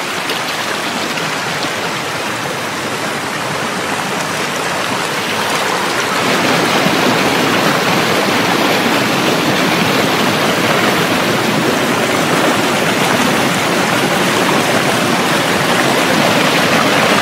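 Mountain stream rushing over rocks, a steady loud rush of water that grows louder about six seconds in.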